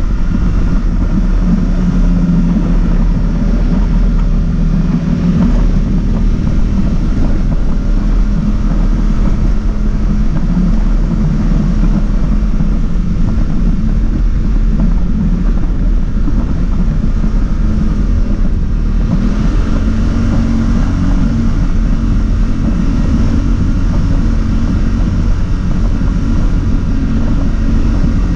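ATV engine running steadily while riding along a gravel trail, heard from the rider's seat, with its pitch drifting a little as the throttle changes.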